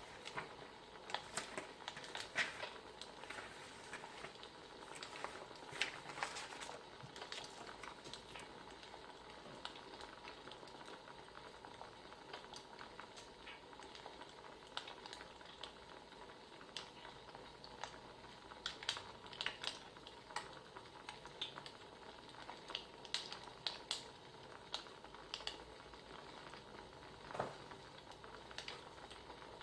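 Wood fire crackling: a steady soft hiss with irregular sharp pops and snaps scattered throughout.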